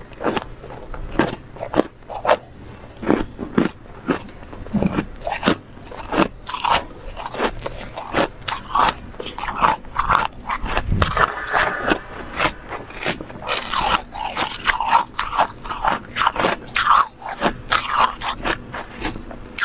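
Close-miked biting and chewing of flaky refrozen freezer frost: a run of sharp, irregular crunches that come faster in the second half.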